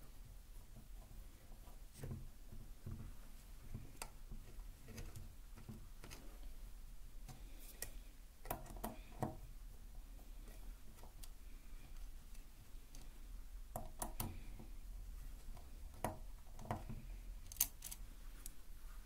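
Close-up handling sounds during a battery change on a microphone: faint, scattered small clicks and ticks, with a few soft thumps early on and clusters of sharper clicks in the middle and near the end.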